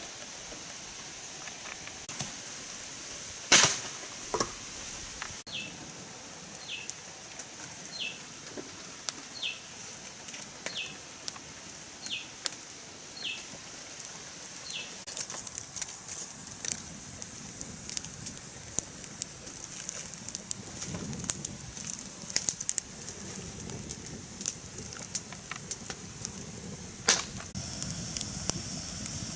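Forest ambience: a steady high-pitched insect drone and a bird repeating a short falling note a little over once a second for about ten seconds. Scattered sharp clicks and knocks run through it, the loudest about three and a half seconds in, with more crackling and rustling in the second half.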